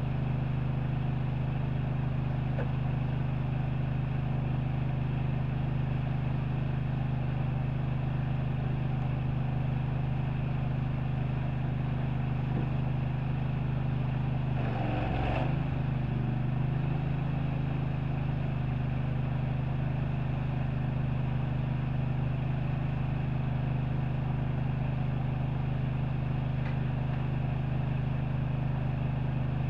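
Pressure washer's engine running steadily under a hiss of spray. About halfway through its pitch briefly sags and recovers.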